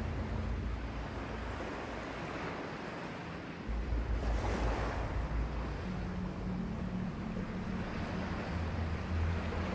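Small waves washing onto the beach, one wash swelling louder about four to five seconds in, with wind rumbling on the microphone.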